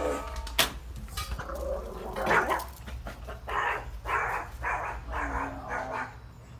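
Maltese barking in a run of short barks while chasing a deer, the barks coming about twice a second in the second half. A sharp knock about half a second in.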